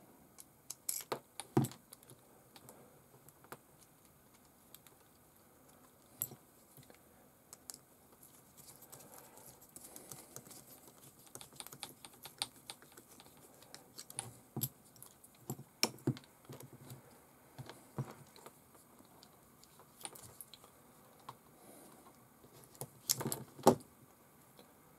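Irregular small clicks and light plastic clatter from a screwdriver working screws into an RC servo's plastic mounts and from the servo being handled, with a louder cluster of clicks near the end.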